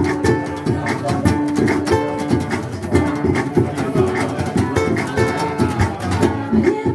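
Acoustic guitar and ukulele strummed together in an instrumental passage of a live song.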